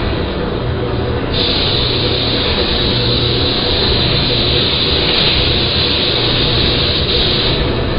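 Paint spray gun hissing as the trigger is held, starting about a second in and cutting off near the end, over a steady machine drone.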